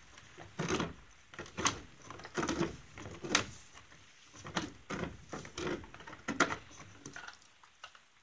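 Pony licking and nosing an Uncle Jimmy's hanging lick on a rope, knocking it against the wooden stall boards: an irregular series of knocks and scrapes, with licking in between.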